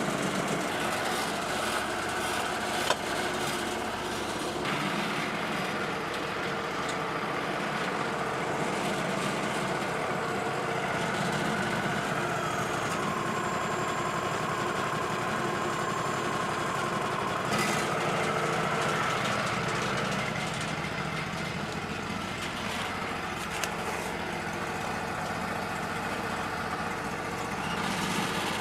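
A small engine running steadily. Its speed changes a couple of times around the middle, rising and then settling lower before rising slightly again.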